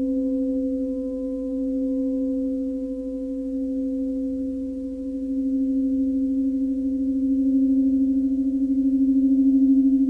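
Large tam-tam gong sounding a sustained, steady singing tone with its octave above, worked with a mallet held against its face rather than struck. The tone wavers quickly and swells slowly louder over the second half.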